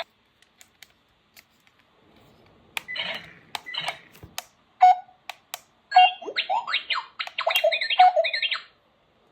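Electronic chirps and warbling beeps from a toy robot, a quick run of up-and-down pitch sweeps in the second half. Scattered sharp clicks come before them.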